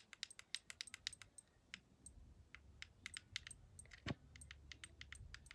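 Faint, irregular small clicks and taps, several a second, of fingers handling a plastic action camera, with a low rumble from about two seconds in and one louder knock about four seconds in.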